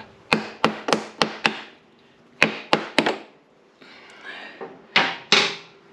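Light metallic taps and clinks on a KTM 200 two-stroke's cylinder head as it is worked loose, five quick ones then three, followed by a short scrape and two duller knocks near the end as the head comes off and is set down.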